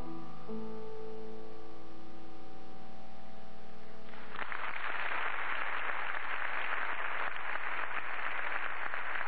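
The instruments hold a closing chord that rings on for about four seconds. Then audience applause breaks out and carries on steadily.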